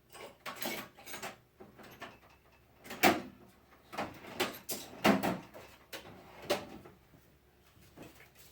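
Irregular knocks and clatters of hard objects being handled and set down, the two loudest about three and five seconds in.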